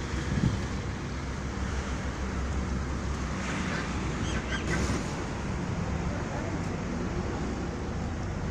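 Steady wind rumbling and buffeting on the microphone, with a brief faint high wavering sound near the middle.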